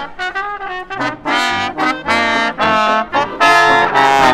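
Trumpets of a Dixieland jazz band playing a New Orleans jazz tune: a run of held notes that gets louder about a second in.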